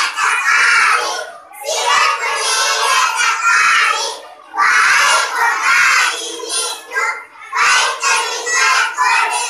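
A group of young children singing together in unison, in phrases of a few seconds separated by short breaks for breath.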